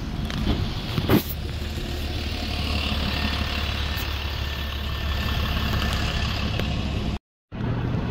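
Bus engine running steadily close by, a deep low rumble with street-traffic noise, and one short sharp sound about a second in. The sound drops out completely for a moment near the end.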